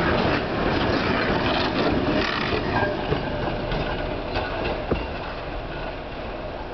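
M62 diesel locomotive running light past and away: its two-stroke diesel engine and rolling wheels fading steadily as it recedes, with a few sharp clicks from the wheels crossing rail joints.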